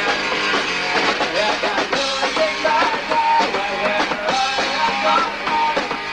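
Punk rock band playing live, with electric guitar and drums, loud and without a break.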